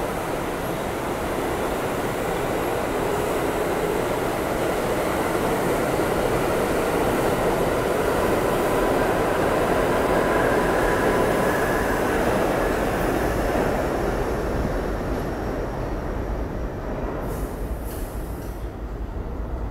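New York City subway train pulling out of the station and gathering speed, the cars rumbling past with a faint high whine. It is loudest about ten seconds in, then fades as the train goes into the tunnel, with a few clicks near the end.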